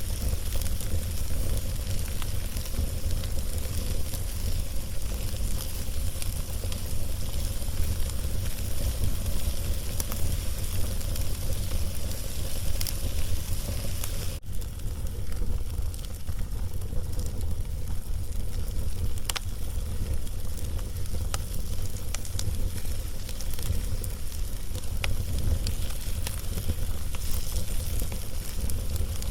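Log fire crackling: scattered sharp pops and snaps over a steady hiss, with a continuous low rumble underneath.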